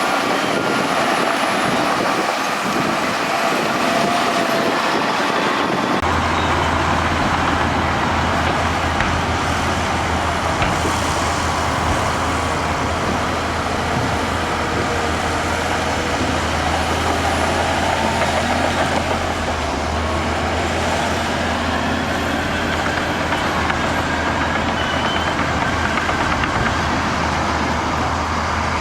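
Bulldozer's diesel engine running steadily under work. A deep low hum comes in about six seconds in and holds.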